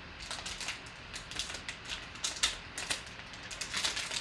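Silver foil wrapper of a trading-card pack crinkling as it is torn open and peeled back from the cards: a quick, irregular run of sharp crackles.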